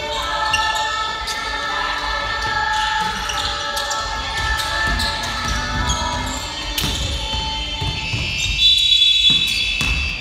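Basketball being dribbled and bouncing on a wooden gym floor, with sneakers squeaking and players and spectators calling out. About nine seconds in comes a short, loud, shrill blast, a referee's whistle.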